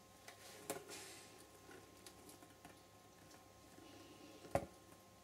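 Quiet room tone with a few faint, short clicks. The loudest click comes about four and a half seconds in.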